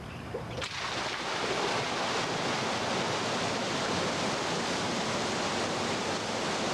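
A steady rushing noise that comes in sharply, with a click, just under a second in and then holds.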